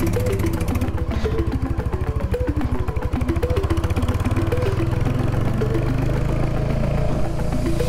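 Royal Enfield Hunter 350's single-cylinder engine running with a steady pulsing beat, its note rising a little about halfway through. A plucked-string melody of background music plays over it.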